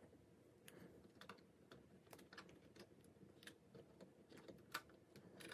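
Faint, irregular small clicks and ticks of fingers handling thermostat wires and labels at the plastic thermostat's terminal block, one sharper click near the end.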